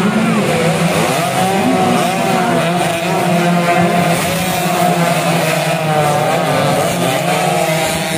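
Two-stroke underbone moped engines revving, several pitches wavering up and down together over a steady low drone.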